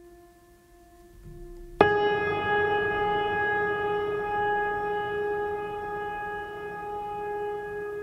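Ambient background music: a faint held tone, then a loud sustained tone rich in overtones that starts abruptly about two seconds in and slowly fades.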